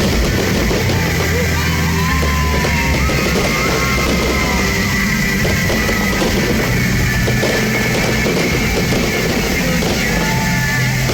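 Loud rock music with a drum kit, steady throughout.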